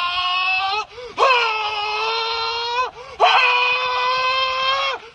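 High-pitched, drawn-out screaming in a power-up yell. Each scream is held at one steady pitch for about two seconds, broken by brief pauses, with a new scream starting right at the end.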